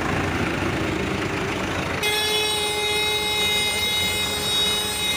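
Farmtrac 6060 tractor's diesel engine running as it drives. About two seconds in, the sound switches abruptly to a steady horn with several tones held together over the engine noise.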